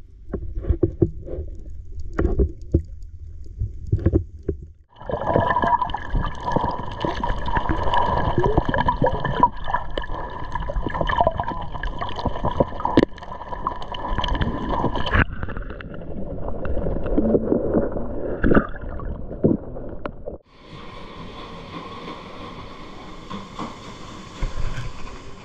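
Underwater sound picked up by a GoPro while snorkelling: muffled gurgling, bubbling and sloshing water with scattered clicks, changing abruptly at several cuts. Over the last few seconds it gives way to a quieter, steady hiss.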